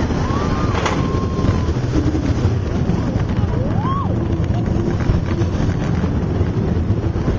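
Roller coaster train running fast along its track: a steady rumble with wind rushing over the microphone. There are a few short rising-and-falling whoops from riders, one near the start and one about four seconds in.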